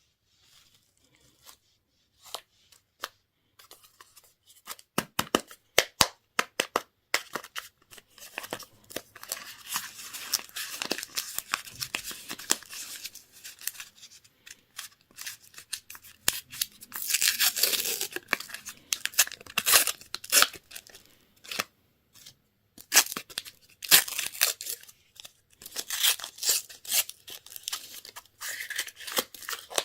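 Candy and toy packaging being torn open and crinkled by hand: irregular sharp crackles and short tearing sounds, with denser, louder stretches of rustling.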